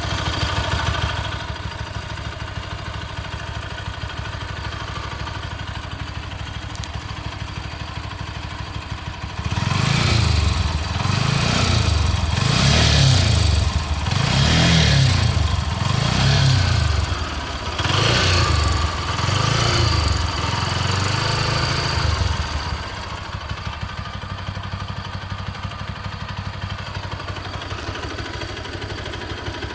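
Bajaj Pulsar AS 200's single-cylinder engine idling, then revved about six times in a row, then settling back to idle. It is running with a bad-sounding engine noise that has been growing steadily worse. Mechanics variously blame the timing chain, the valves or the camshaft.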